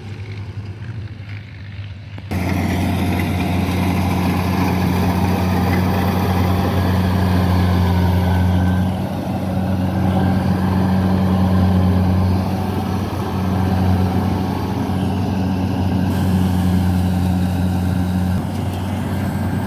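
Kubota combine harvester running close up while it cuts and threshes rice, a steady loud engine hum. It comes in suddenly about two seconds in, after a quieter stretch of a machine working farther off.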